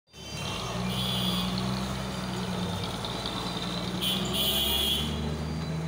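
Diesel engine of a heavy cargo truck running at low speed as it rolls past, a steady low drone. Brief high-pitched sounds come about a second in and again around four seconds.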